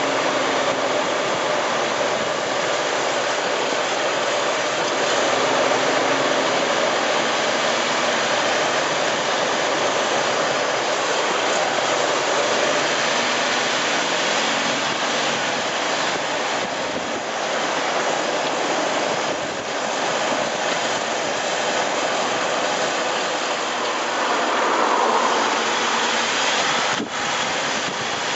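Steady rush of tyre roar and wind from under a moving Jeep Wrangler LJ Unlimited Rubicon's front axle, heard from a microphone right by the wheel, with one short knock near the end.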